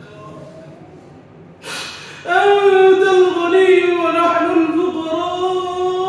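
A man's voice chanting an Arabic supplication (dua) in a melodic style: after a quiet start there is a sharp intake of breath, then one long chanted phrase on a held, slightly wavering note.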